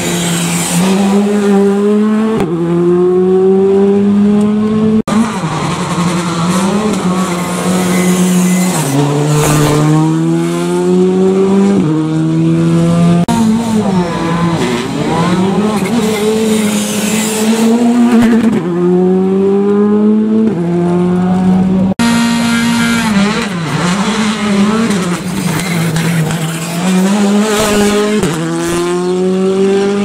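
Škoda Fabia rally cars, turbocharged four-cylinders, accelerating hard through a stage one after another. The engine note climbs and then drops sharply at each upshift, several shifts per car. The sound cuts abruptly from one car to the next twice.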